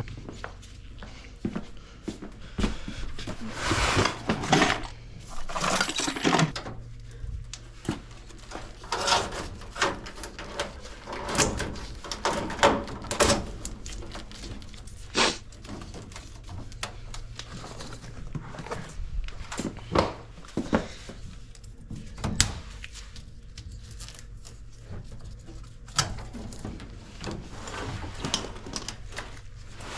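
Irregular knocks, clanks and scrapes of hand tools and sheet-metal parts being handled around an old furnace and AC coil that is being taken out, over a steady low hum.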